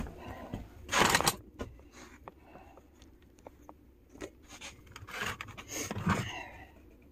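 Close handling noise: cloth and hands rubbing and bumping against the phone, with scraping and rustling. There is a loud burst about a second in, small clicks after it, and another cluster of rustles around five to six seconds.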